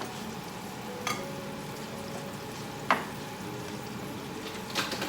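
Pork chops sizzling as they pan-fry, a steady hiss, with three short sharp clicks at about one, three and five seconds in.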